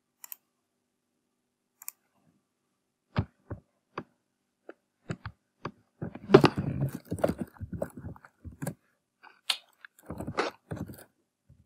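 A few separate clicks, then computer keyboard typing in quick runs of keystrokes, one about halfway through and a shorter one near the end.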